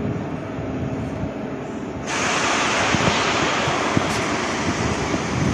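Low rumble of a regional electric train moving in a large station hall; about two seconds in, a loud steady hiss sets in suddenly and holds.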